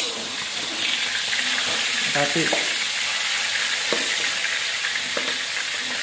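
Pindang fish frying in hot oil in a wok: a steady sizzle, with a metal spatula scraping and knocking against the pan as the fish are turned.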